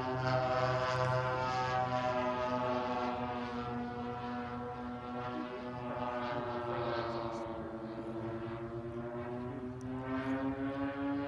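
Twin DLE-35RA single-cylinder two-stroke petrol engines of a large model F7F Tigercat flying overhead: a steady drone whose pitch slides slowly down and then rises again. Near the end the sound pulses evenly as the two engines beat against each other.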